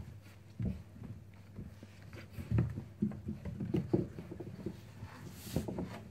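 Labrador puppies scuffling on a cloth-covered bed and gnawing at carrot pieces: irregular soft thumps, scrabbling paws and rustling of the sheet, with a brief louder rustle near the end.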